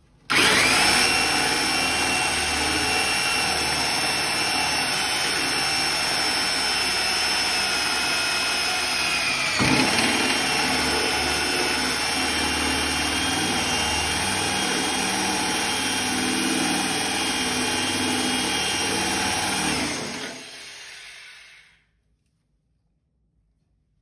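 Power drill turning a titanium-coated step drill bit through 1.0 mm stainless steel sink metal, cutting dry with a steady high whine over the motor; the friction heats the steel red-hot. About ten seconds in the pitch dips briefly, then it runs on and spins down near the end.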